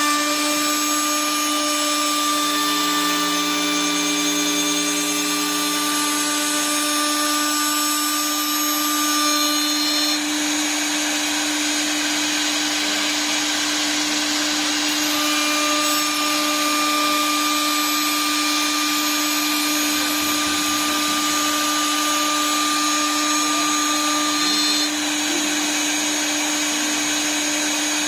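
High-speed electric spindle of an RS1530SA 4-axis CNC wood lathe running steadily with a constant whine, milling wood. Fainter higher tones come and go over the steady note.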